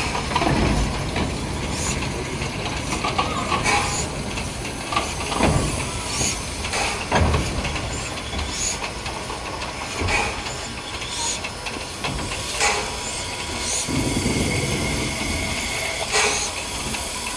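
Steam locomotives hissing steadily, with occasional short knocks and clanks.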